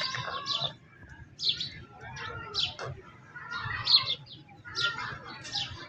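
Small birds chirping: short, high chirps over and over, with a faint murmur underneath.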